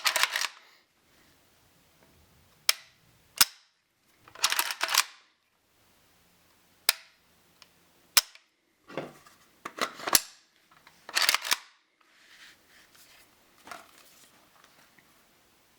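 Sharp metallic clacks and short rattles from a WASR-10 AK-pattern rifle being handled and worked on: single crisp clicks spaced a second or more apart, with brief clattering bursts between them, then fainter handling noise over the last few seconds.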